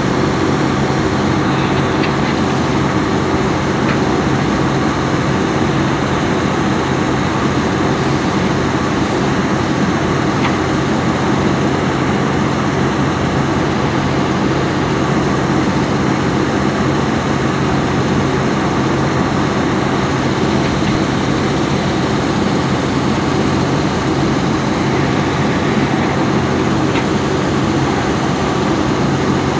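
Volvo EC210B excavator's diesel engine running steadily, a low, even drone with a few faint ticks.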